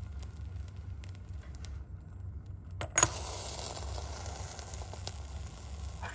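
A porcelain crucible lid clinks down onto a porcelain crucible once, about three seconds in, smothering the burning alcohol inside. A steady low hum runs underneath.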